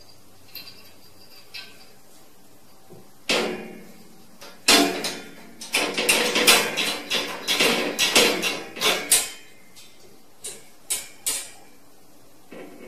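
Metal latch and wire bars of a cage door rattling and clanking as a cat paws at the latch, working to open it. There is a sharp knock about three seconds in, a dense run of rattling from about five to nine seconds, then three single clicks.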